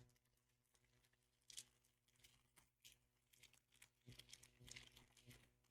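Faint rustling and crinkling of Pokémon trading cards and a booster-pack wrapper being handled, in short scattered bursts that come closer together near the end.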